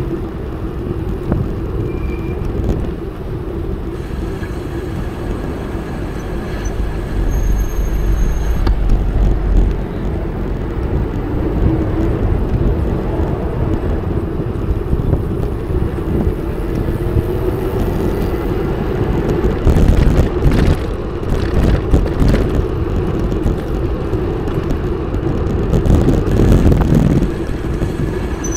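Riding noise from a VanMoof S3 e-bike in city traffic: wind on the action camera's microphone and tyre noise, in a continuous loud rumble that grows louder and rougher for several seconds near the end.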